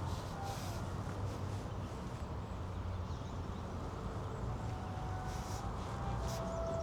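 Outdoor city-park ambience: a steady rumble of distant traffic, with light ticks like footsteps and a few brief, faint whistle-like tones.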